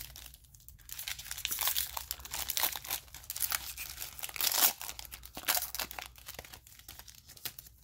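Foil wrapper of a 2013 Topps Football trading-card pack being torn open and peeled apart by hand: irregular crinkling and tearing, with the loudest tear a little past halfway.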